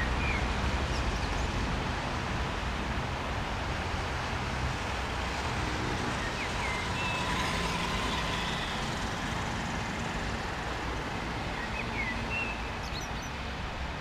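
Steady wind rumble on the microphone, with a few short bird chirps around the middle and near the end.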